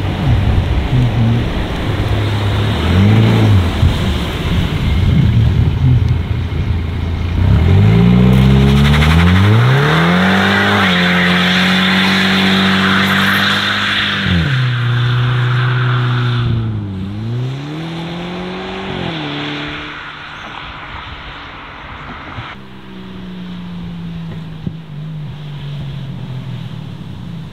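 A car engine rumbling and blipped, then revving up hard about seven seconds in and held at high revs for several seconds with a hiss alongside. It drops, revs up and down twice more, and settles to a lower steady rumble.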